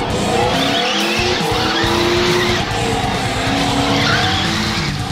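Traxxas Slash 4x4 radio-controlled truck churning through a muddy puddle: its motor revs up and down in pitch over the splashing of its wheels.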